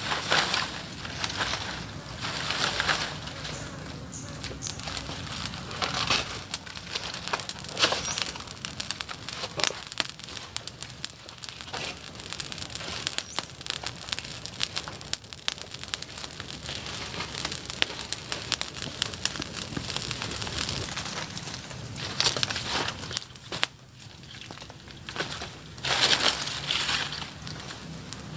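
Dry twigs and leaf litter rustling, crunching and snapping in uneven bursts as they are handled and piled, with the crackle of a small twig fire catching.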